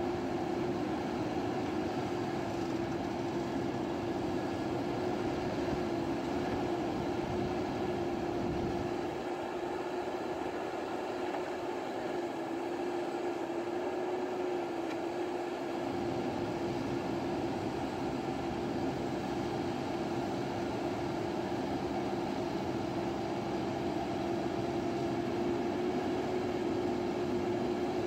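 JCB backhoe loader's diesel engine running steadily under work, with one steady tone held through it.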